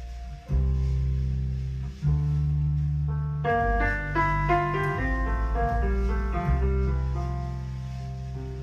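Piano music played through a pair of Jensen CS315 three-way loudspeakers as a listening test of their frequency response. Deep held bass notes change every second or so, and a run of higher notes joins about three and a half seconds in.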